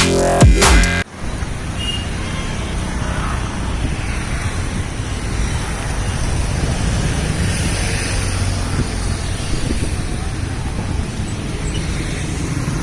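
Electronic intro music cuts off about a second in, then steady road traffic noise: a constant low hum of passing vehicles.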